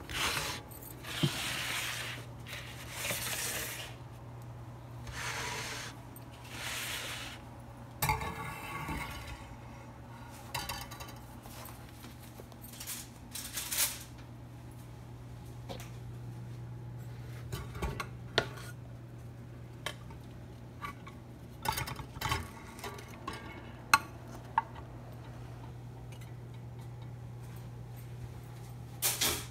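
Bread knife, baking trays and wooden cutting board being handled: about four scraping strokes in the first eight seconds, then scattered knocks and clinks, over a steady low hum.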